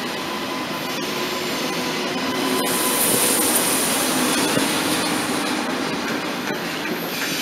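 Double-deck TGV Lyria high-speed train rolling past as it pulls out of the station, its coaches and then its end power car going by. A steady rumble of wheels on rail with a hiss that swells to its loudest about halfway through.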